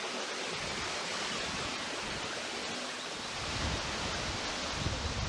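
Steady rushing outdoor wind noise, with low gusts buffeting the microphone from a little past halfway through.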